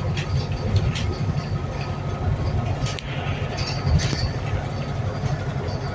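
Wright New Bus for London (New Routemaster) diesel-electric hybrid double-decker heard from inside while on the move: a steady low rumble from the engine and drivetrain, with a faint steady high whine and a few light clicks and rattles.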